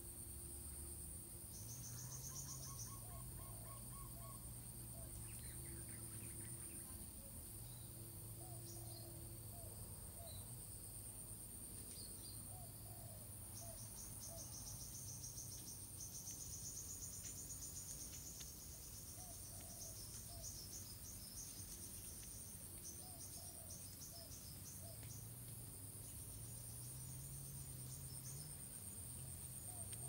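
Faint outdoor ambience: a steady, high-pitched insect trill, with scattered short series of small-bird chirps.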